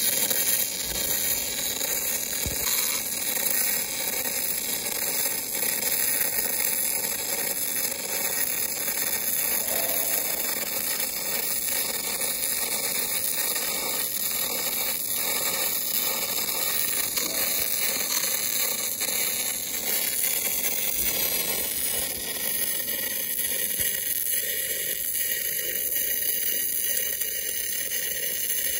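MIG/MAG welding arc running steadily as a bead is laid: a continuous hiss.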